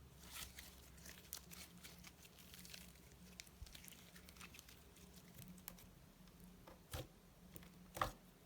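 Slime being worked by hand, giving faint sticky crackles and small clicks, with a couple of louder soft knocks near the end.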